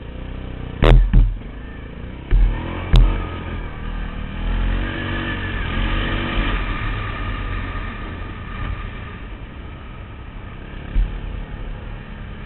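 Quad (ATV) engine running while riding, its pitch rising and falling as the throttle is worked. Four sharp knocks come in the first three seconds.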